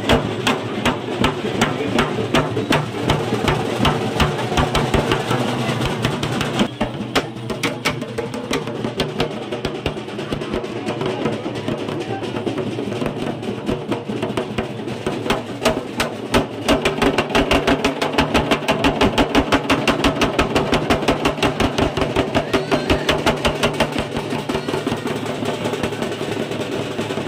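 Fast, driving drumming in a steady rapid beat, the strokes growing louder and more even from about halfway through.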